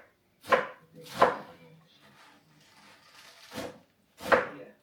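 Kitchen knife chopping fresh spinach on a cutting board: four sharp strikes, two close together about a second in and two more near the end.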